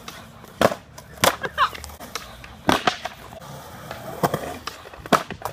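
Skateboard clacks and impacts on concrete: about six sharp hits spaced unevenly, from the board's tail popping, the board slapping down and wheels hitting the ground during trick attempts.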